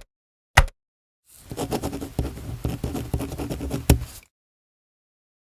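A single click, then about three seconds of a pen scratching across paper, with a sharp tap near the end of the writing.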